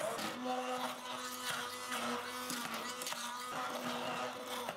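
Electric blender motor running at a steady pitch, pureeing cooked carrots with cream and butter. It starts abruptly and dies away near the end.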